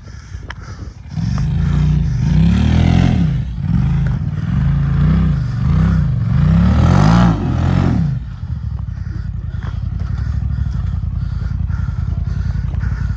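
Off-road vehicle engine revved up and down over and over, then settling into a steady idle about eight seconds in.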